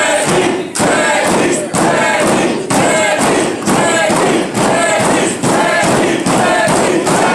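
Wrestling crowd chanting in a steady rhythm, about two beats a second, with a thud on each beat.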